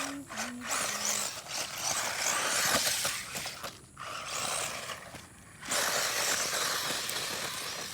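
Traxxas 1/16 Slash RC truck's electric motor whining as it revs up and down under the throttle, with brief pauses where the throttle is let off.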